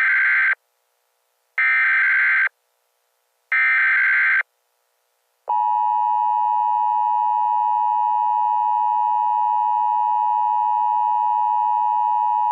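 Emergency Alert System signal: three SAME header data bursts of about a second each, two seconds apart, then from about halfway through the steady two-tone EAS attention signal (853 and 960 Hz). Together they mark the start of a new emergency alert broadcast.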